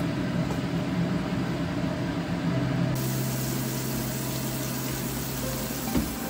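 Tap water running steadily from a kitchen faucet into a plastic colander in a stainless-steel sink, starting abruptly about halfway through, with a short knock near the end.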